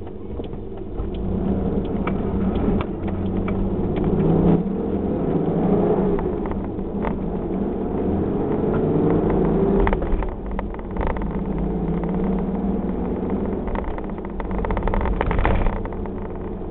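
Car driving, heard from inside the cabin: steady engine and road noise, the engine note rising and falling a few times as the car accelerates, with scattered light clicks and knocks.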